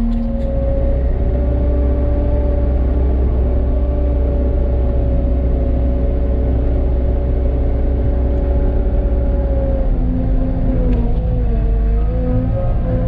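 Skid steer loader, apparently a Cat 246D, running hard while plowing snow: a steady engine rumble with a high whine on top. After about ten seconds the pitch starts to waver up and down as the load and revs change.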